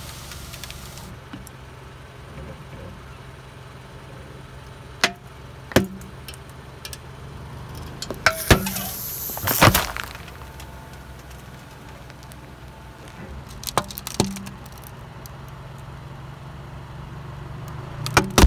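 A car engine running slowly while its tyre crushes soda cans and bottles, giving sharp cracks and pops over the steady engine hum. A louder pop with a hissing spray comes about 8 to 10 seconds in, and there is another crack near the end.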